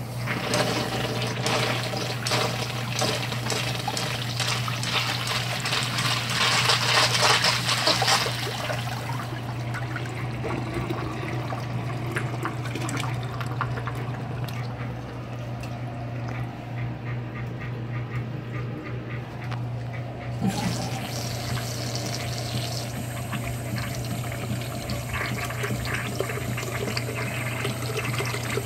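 Flush-valve-fed wall-hung urinal, a Crane Sanitor, flushing: a rush of water swirling through the bowl, loudest about six to eight seconds in, then easing to a steadier run of water. A short knock comes about twenty seconds in, with water still trickling after it, over a steady low hum.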